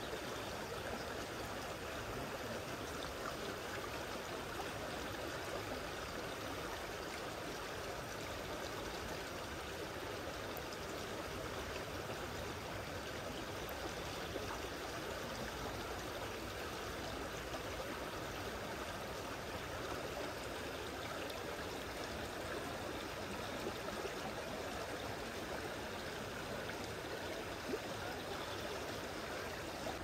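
Shallow mountain stream running steadily over a pebble and gravel bed, a constant rush of flowing water.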